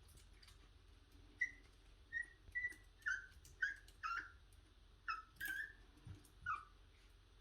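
Black-and-tan Pomeranian puppy whining, a string of about nine short high-pitched whines, several falling in pitch, starting about a second in.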